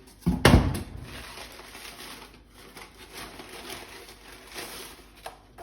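A heavy thump about half a second in, then rustling and crinkling of cardboard and paper packaging being handled.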